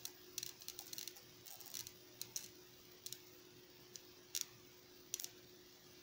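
Irregular sharp little snaps of small high-voltage sparks jumping between a fingertip and a homemade negative ion generator, over a faint steady hum.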